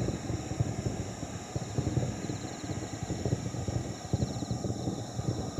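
Distant fireworks finale barrage: many shell bursts booming over one another into a continuous rolling rumble.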